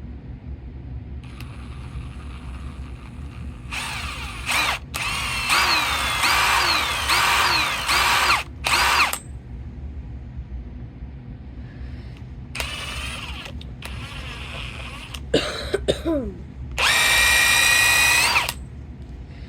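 A power drill runs steadily while steel wool is pressed against a spinning metal socket to scrub off rust. Several times the steel wool squeals loudly against the metal, in high, wavering tones; the longest stretch is in the first half.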